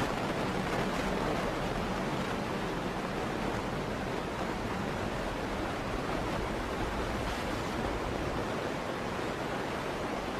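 Steady road and tyre noise of a car driving on a snowy, slushy road, heard inside the cabin through a dash cam's microphone: an even hiss and rumble with no distinct events.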